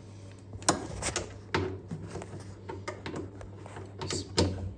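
Irregular light clicks and knocks of hand tools on metal as screws are undone on a washing machine's clutch assembly, over a low steady hum.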